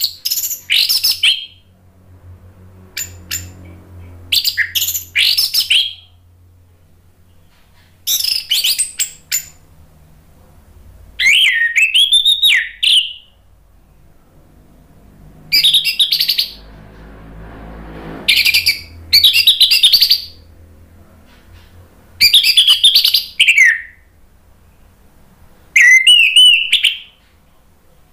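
Orange-headed thrush singing loud, varied song phrases of one to two seconds each. The phrases are full of quick trills and gliding whistled notes, with pauses of one to two seconds between them, about nine phrases in all.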